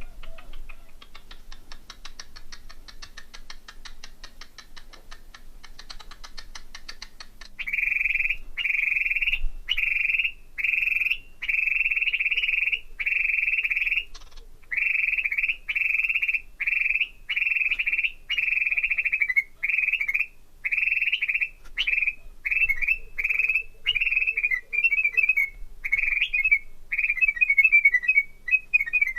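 Cockatiel whistling a tune: a run of clear, steady whistled notes of about one a second, breaking into quick warbling notes near the end. Before that, for several seconds, there is a faint rapid buzzing.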